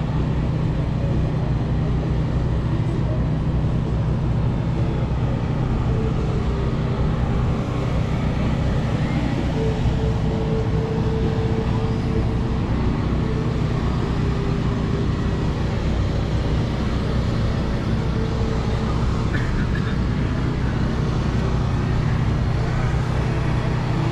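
Steady engine drone, even and unbroken, with a fainter higher tone coming and going over it.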